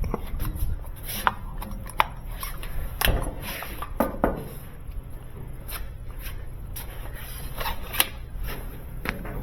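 Irregular clicks, knocks and rubbing from hands working on a GE clothes dryer, with a sharp knock about two seconds in and another near eight seconds.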